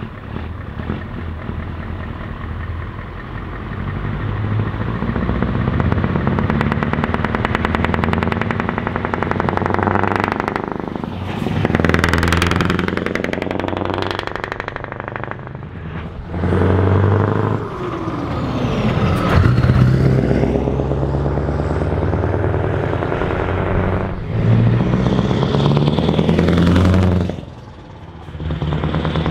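Scania V8 diesel trucks (R650 and R500) pulling away past one after another under load, the engine note climbing and then dropping sharply several times as the drivers shift gear. Each truck's pitch rises and then falls as it goes by.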